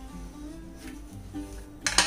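Background music with a plucked-string melody; near the end, a sharp clatter as a wooden spatula is put down on the stone countertop.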